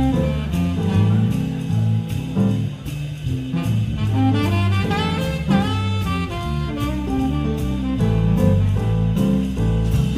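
Jazz music with a saxophone melody over bass and a drum kit, at a steady beat.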